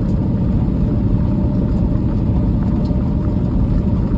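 Peterbilt 389 semi truck heard from inside the cab while driving: a steady low rumble of diesel engine and road noise.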